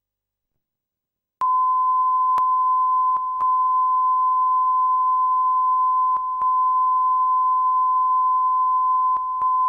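Broadcast line-up test tone played with colour bars on an old videotape: one steady, unwavering beep that starts about a second and a half in. A few faint clicks and brief dips in level break it.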